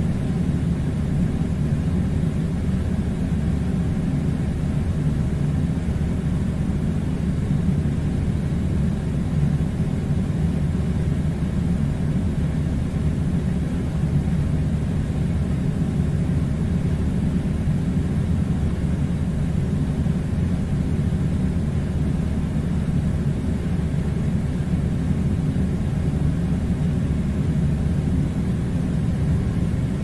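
A steady, unchanging low rumbling drone that does not rise, fall or break.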